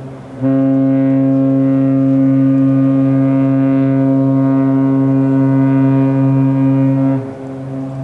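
Cruise ship's horn sounding one long, deep, steady blast of nearly seven seconds, starting about half a second in and stopping near the end. A quieter tone of the same pitch carries on before and after it.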